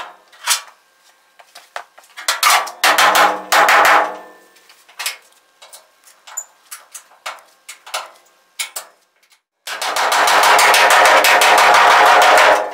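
Rapid rattling metal impacts as the steel rear fender trim is worked to bend it in and fit flush: a short dense run about two to four seconds in, scattered single clanks, then a longer steady rapid run near the end.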